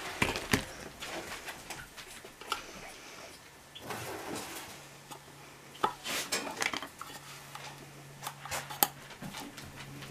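Light clicks and taps of a small clear plastic enclosure being handled and set down on a work mat, as a tiny magnet is fitted to its edge. The taps come scattered and irregular, the sharpest a few seconds apart.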